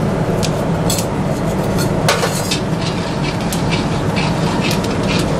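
Metal spatula scraping and knocking irregularly against a kadhai as coriander seeds, peanuts and dals fry in a little oil. Under it runs a loud, steady low rumble of the kitchen.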